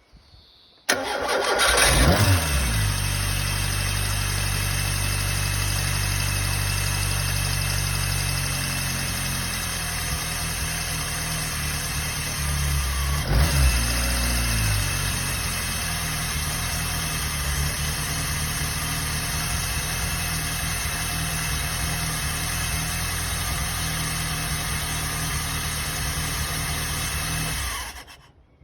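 Peugeot 106 1.1i's four-cylinder petrol engine being started: a brief crank, then it catches with a flare of revs and settles to a steady idle, its speed easing down over the first several seconds. About halfway through it is blipped once, briefly, then it idles on until it is switched off near the end.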